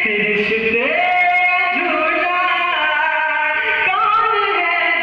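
A man singing a naat, an Urdu devotional song in praise of the Prophet, into a microphone. He holds long notes and slides smoothly between pitches.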